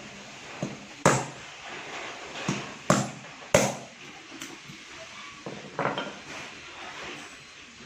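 A few sharp knocks from hand-tool work: a loud one about a second in, three more over the next two and a half seconds, and softer ones near the end.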